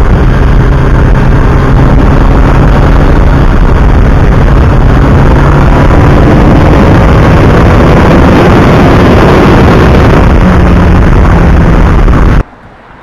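Suzuki GS1100E's air-cooled inline-four running under way, its note buried in heavy wind rush, with the engine pitch shifting a little as speed changes. It cuts off abruptly near the end.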